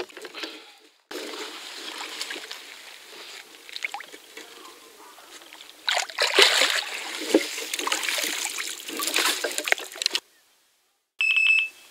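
Water sloshing and splashing as a mirror carp is let go from a floating retention sling into the pond, loudest from about six seconds in. After a short silence near the end, an electronic carp bite alarm gives a long high beep, signalling a bite.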